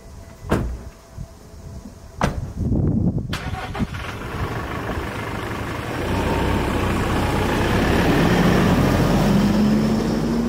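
Vantech Cordereeves camper van: two sharp knocks as the cab door is shut, then the engine starting about three seconds in. It runs, grows louder from about halfway as the van pulls away, and its note rises near the end.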